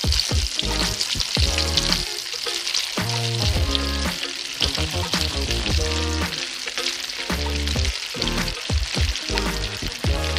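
Hot oil sizzling steadily as potato patra slices deep-fry in a pan, with background music playing over it.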